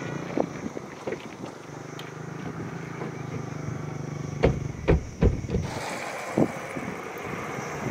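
SUV doors slamming shut: a quick run of heavy thumps about halfway through, then one more a second later, over a steady low hum that stops soon after the slams.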